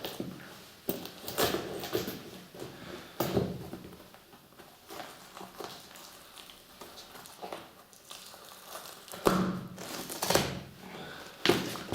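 A cheap sneaker being destroyed by hand and foot: irregular knocks and thuds with crinkling, a cluster in the first few seconds and the loudest hits about nine to eleven seconds in.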